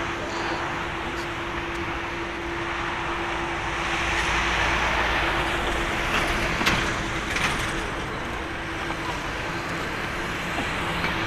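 Airbus A330-200 airliner's jet engines at idle thrust as it taxis and turns onto the runway: a steady whooshing rumble with a constant hum, swelling a little about four seconds in. A sharp click is heard about two-thirds of the way through.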